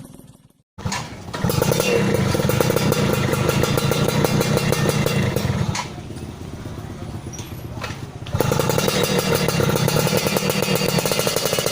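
Yamaha F1ZR two-stroke motorcycle engine running loud through its exhaust after a brief silent cut. It drops to a lower level for about two and a half seconds around the middle, then picks up loud again.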